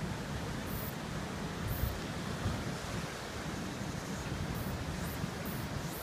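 Sea surf breaking on a rocky shore, a steady wash of waves, with gusts of wind buffeting the microphone.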